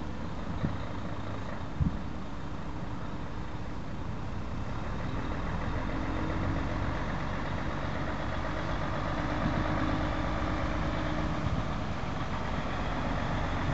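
Stuttgart Stadtbahn light-rail train running at a distance: a steady rumble with a low hum and a faint motor tone in the middle of the clip.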